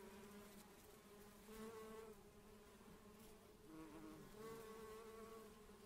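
Honeybees buzzing faintly: a steady hum whose pitch rises and falls a little at times.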